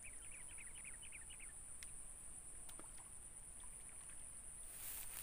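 Steady high-pitched insect drone over a creekside swamp, with a rapid run of short bird chirps in the first second and a half and a few faint clicks. Near the end a noisy splashing rush as a small snakehead hits the frog lure on the surface.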